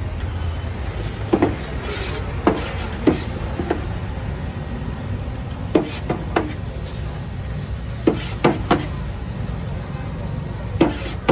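Sharp clicks and knocks of utensils and trays being handled on a steel food counter, about a dozen in irregular groups, over a steady low background rumble.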